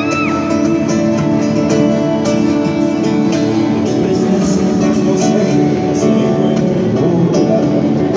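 Live band playing an instrumental passage, with guitar prominent over a steady beat.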